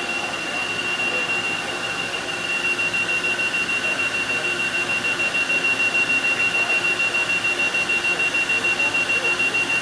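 Cincinnati CNC machine running, with a steady high-pitched beeping tone over mechanical noise. From about two and a half seconds in, the sound pulses rapidly, several times a second.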